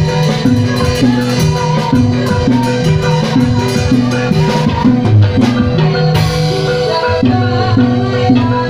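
Loud Javanese gamelan music accompanying a Jathilan dance: mallet-struck metallophones playing a repeating pattern of notes over drum strokes.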